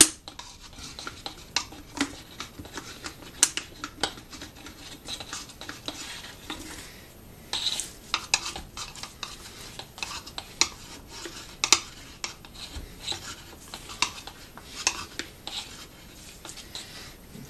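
Dry straw being pushed by hand into the neck of a plastic bottle: irregular crackles, scrapes and clicks of straw against the plastic.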